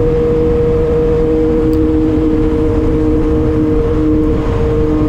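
Yamaha MT-09 three-cylinder engine, fitted with an aftermarket LeoVince exhaust, running at a steady cruise with an even, unchanging engine note, heard from the rider's seat under heavy wind rumble on the microphone.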